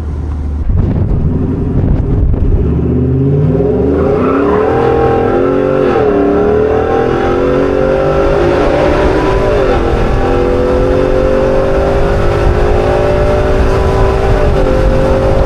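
Ford F-150 Tremor's 5.0 L Coyote V8 accelerating hard with its exhaust cut-out valves open, running loud and uncorked. The engine note climbs steadily and dips briefly three times as the automatic upshifts, then climbs again after each shift.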